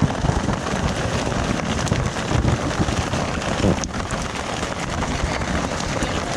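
Heavy rain falling steadily, a dense hiss with fine patter of drops, with low rumbling of wind on the microphone.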